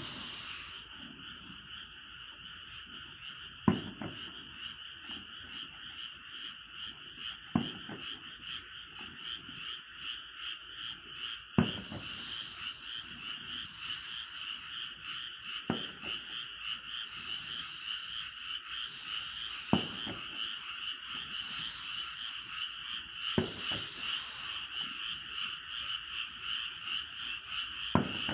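Distant fireworks bursting, a sharp boom about every four seconds, seven in all, over a steady, rapidly pulsing chorus of frogs.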